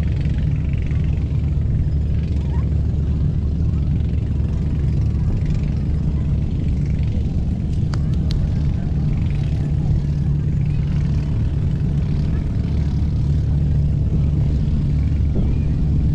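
Steady low engine drone, even in level throughout, with faint voices in the background.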